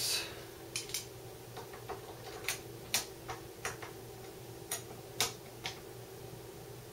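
Light metallic clicks and taps, about a dozen at uneven spacing, as M8 socket-head bolts are picked up and turned into a Y-axis ball-screw motor mount with a hex key. The clicks stop about a second before the end.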